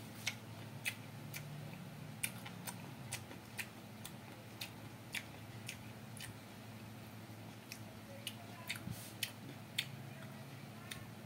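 Crisp clicks and crunches of someone chewing crunchy, cornstarch-coated fried tofu, about two a second and uneven, over a faint low hum.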